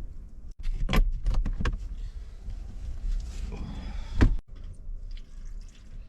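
A few sharp knocks and clatters of things being handled, loudest about four seconds in, over a low steady rumble.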